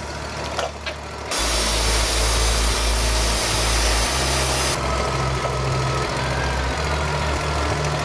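Wood-Mizer LT40 portable sawmill's engine idling steadily, a low hum with a hiss over it. The sound changes abruptly about a second in and again about five seconds in.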